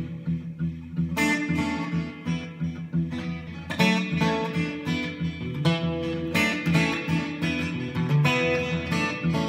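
Martin acoustic guitar being played: chords and single notes struck every half second or so and left to ring.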